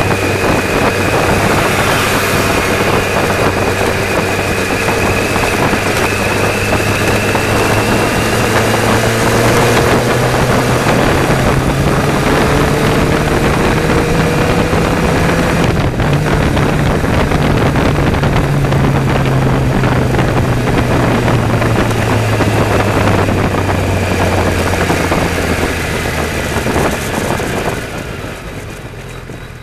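Car engine and tyre noise heard from inside the cabin through a dashcam's built-in microphone while driving. The engine hum rises in pitch as the car picks up speed, dips briefly about halfway, then eases off and quietens near the end as the car slows.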